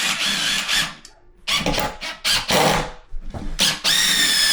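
Power drill driving screws into flat-pack furniture panels in several short runs with brief pauses between them. In the last run the motor whines, rising in pitch and then holding steady.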